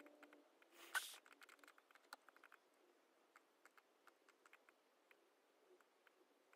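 Faint, irregular clicks of a laptop keyboard and mouse being worked, several a second at times. A brief, louder scrape comes about a second in.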